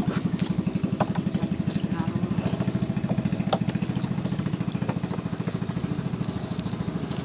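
Small engine idling with a steady, rapid putter, about a dozen beats a second, with a few faint clicks over it.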